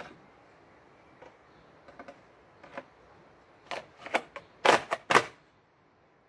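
Plastic blade guard being fitted over a cordless hedge trimmer's toothed blade: scattered light clicks, then a quick run of louder clacks, the two loudest about five seconds in.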